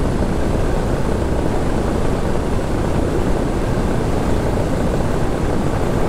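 Steady, rough rush of wind buffeting the microphone of a paramotor in flight, with the Moster 185 engine and propeller drone blended into the noise rather than standing out as a clear tone.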